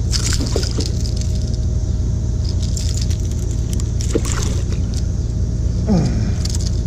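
Clicks and rattles of a treble-hooked swimbait and fish grips as a freshly landed striped bass is held for unhooking, over a steady low rumble.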